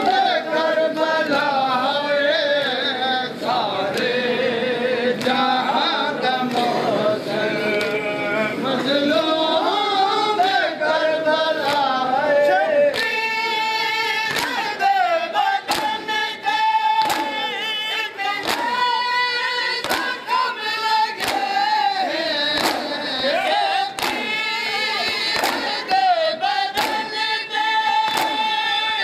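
Group of men chanting a nauha (mourning lament) together in a loud sung chorus. About halfway in, regular chest-beating strikes of matam join under the chant at roughly one a second.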